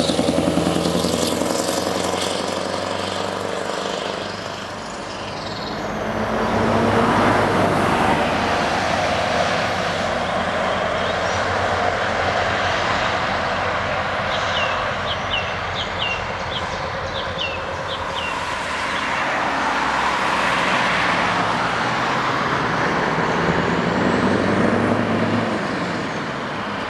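Heavy trucks driving past on an open road, engines and tyres: a Scania truck passes close at the start, then a steady rush of traffic, and a truck's engine grows louder near the end as it approaches.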